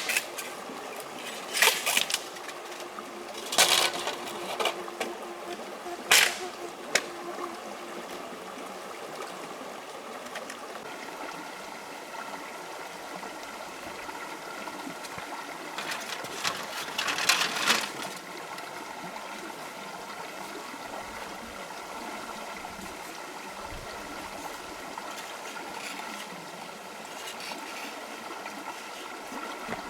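Water trickling steadily, with four sharp knocks in the first several seconds and a louder splashing or rustling burst about halfway through.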